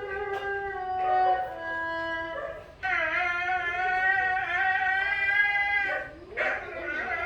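Music playing from a TV programme: a melody of held notes stepping from pitch to pitch, then a loud, wavering note held from about three seconds in until about six seconds, with another starting near the end.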